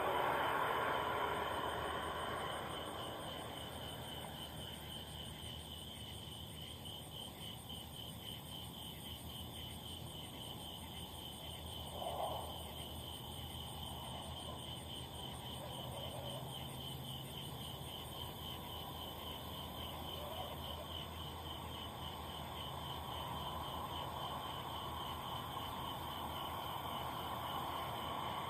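Mk7 Volkswagen GTI's 2.0-litre turbo four and road noise inside the car, the revs falling over the first few seconds and then running low and steady. A steady, fast high-pitched pulsing goes on throughout, and one short knock stands out about twelve seconds in.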